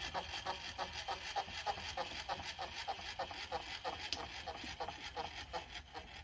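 Grizzly G1007 mill-drill cutting into 3/8-inch steel plate: a steady whine with an even scraping chatter about four times a second, which cuts off abruptly at the end.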